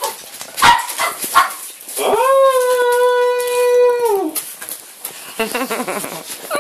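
Puppy giving a few sharp barks, then one long howl of about two seconds that rises at its start and drops away at the end, in excited play.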